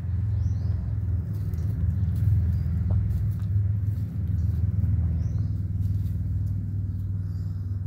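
Low, steady engine hum of a motor vehicle running nearby, swelling up and fading away near the end. Faint bird chirps come every second or two.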